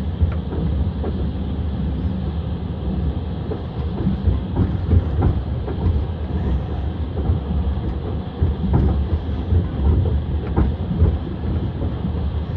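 Passenger train's wheels rumbling and clacking over the rails, heard from aboard a moving carriage: a steady low rumble with scattered, irregular knocks.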